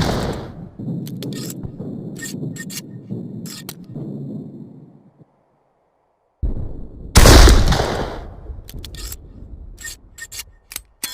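Morgan-James rifle sound effect: a shot's echoing tail fades at the start, followed by several sharp clicks of the rifle's action being worked; a second, louder shot comes about seven seconds in, again followed by a series of clicks.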